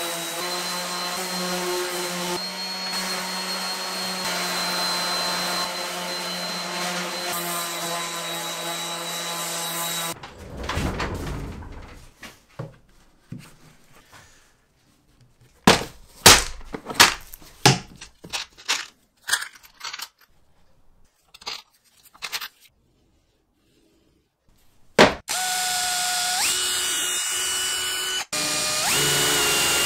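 A DeWalt random orbital sander runs steadily on a plywood panel for about ten seconds. A run of scattered sharp knocks and clicks follows. Near the end an electric drill bores a small hole in plywood, its motor pitch stepping up twice as it speeds up.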